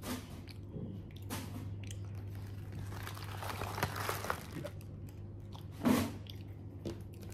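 Paper fast-food chicken wrapper being folded and crumpled around leftover bones, crackling most densely in the middle, with chewing; a brief louder noise about six seconds in.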